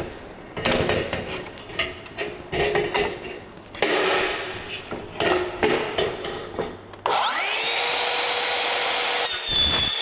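Irregular knocks and scrapes of handling, then a rear-handle Makita 7-1/4-inch circular saw with a Diablo Steel Demon Cermet carbide metal-cutting blade spins up with a rising whine about seven seconds in. A couple of seconds later it bites into a thin-walled metal box tube, adding high, ringing metallic tones over the motor.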